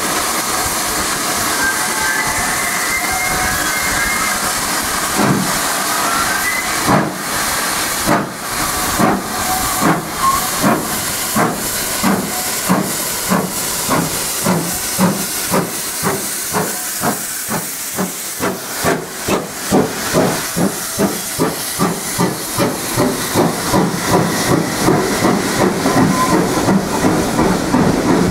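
Steam locomotive 9351, a GWR 2-6-0, starting its train. Steam hisses for the first few seconds; then, about five seconds in, the exhaust beats begin, slow at first and quickening to about two a second as it gathers speed.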